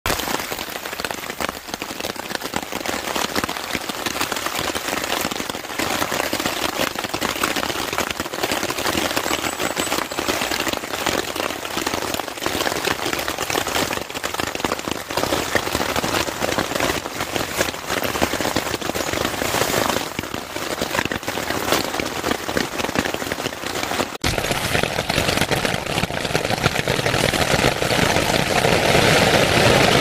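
Rain falling on a camping tarp overhead: a dense, irregular patter of many separate drop hits over a steady hiss. About 24 seconds in, the sound changes abruptly to a fuller, steadier rain.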